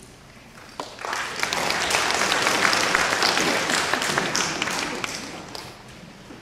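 Audience applauding: the clapping starts about a second in, swells, then dies away near the end.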